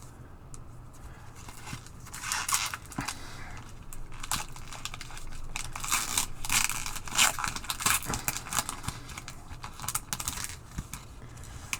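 Wrapper of a hockey trading card pack being torn open and crinkled by hand, a run of crackling tears and rustles starting about two seconds in.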